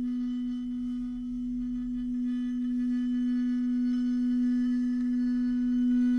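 Sound-design drone for a dance film: a single sustained low ringing tone with many faint overtones above it, holding one pitch and swelling slightly louder toward the end.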